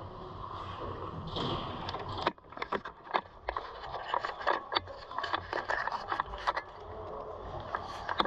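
A GoPro action camera being picked up and handled close to its microphone: a run of irregular knocks, clicks and rubbing on the housing and mount, starting a little over two seconds in, after a steady hiss of ice-rink noise.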